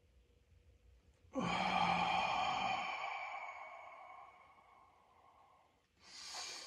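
A man in an ice bath lets out one long, loud sigh: it starts suddenly about a second and a half in with voice in it, then fades to a breath of air over about four seconds. A short breath in follows near the end.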